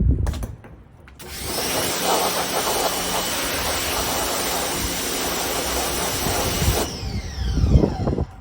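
Pressure washer running and spraying, a loud steady hiss with a machine hum, then cutting off about seven seconds in, its motor winding down in falling pitch. A knock right at the start.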